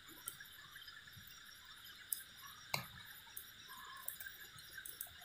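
Faint night-time outdoor ambience: a steady high insect hum with scattered sharp clicks and ticks, the loudest about two and three seconds in.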